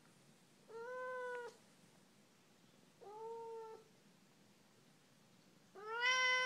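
Siamese cat meowing three times: drawn-out calls, each under a second, with a slightly arched pitch. The third meow is the loudest.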